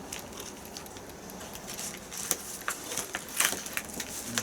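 Scattered light clicks and crackles of fish packaging being handled, over the steady hiss of an electric food steamer at work.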